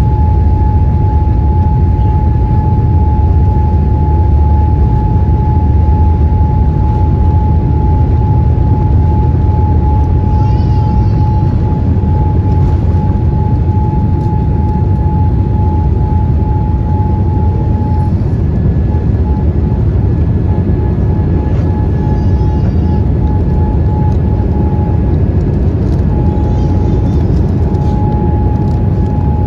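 Cabin sound of a Boeing 787-8 with Rolls-Royce Trent 1000 engines during the takeoff roll and liftoff: a loud, heavy, steady rumble with a steady whine over it. About two-thirds of the way through, the whine becomes broken and intermittent.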